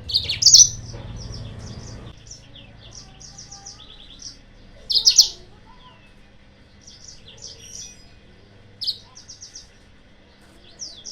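Yellow-fronted canary (Mozambique canary) singing as a lure call: short trills of quick high notes, broken by loud chirp clusters three times.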